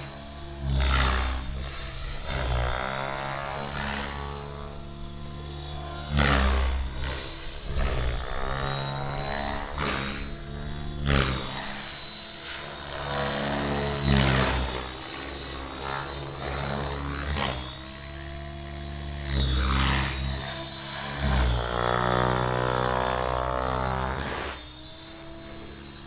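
A 700-size radio-controlled helicopter flying fast passes overhead. Its rotor makes a whup-whup blade beat that rises and falls in pitch and loudness as it swoops by, with a steady high whine underneath. It gets quieter near the end.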